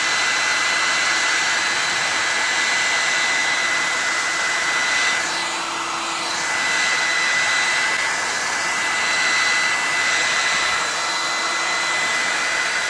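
Hair dryer running steadily: a rush of air with a steady high whine from its motor.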